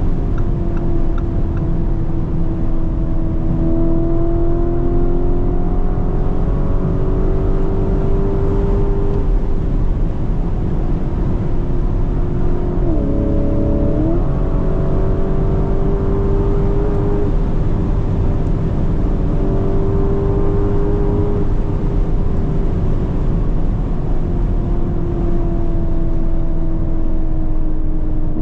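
Lamborghini Urus SE's twin-turbo 4.0-litre V8 pulling hard at speed. Its engine note holds fairly steady with slow rises and falls, dipping and climbing back at a gear change about thirteen seconds in and again near the end. A steady low road roar runs underneath.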